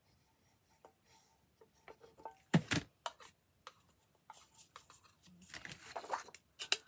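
Tabletop handling of craft materials: small clicks and knocks with paper rustling, the loudest a sharp double knock about two and a half seconds in.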